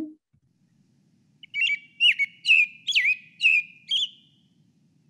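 American robin singing, played from a recording: a string of about six short, quick phrases, starting about a second and a half in and stopping near four seconds.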